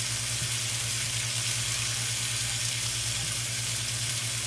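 Steady sizzling hiss of food cooking, from the boiling berry glaze or the yak steaks on the indoor electric grill, over a steady low hum.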